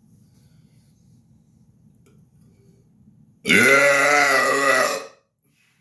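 A man's single long, loud burp, forced on purpose, lasting about a second and a half. It starts abruptly about three and a half seconds in and cuts off sharply.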